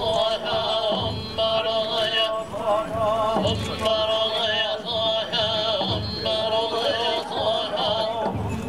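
Voices chanting in unison with a wavering, sustained pitch, over a slow, steady drumbeat that comes a little more often than once a second.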